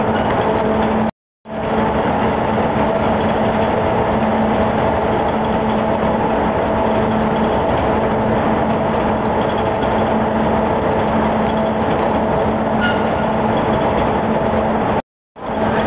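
Automatic box freezing plant running steadily: a constant machinery hum with a steady drone over a noisy rush. The sound cuts out briefly about a second in and again near the end.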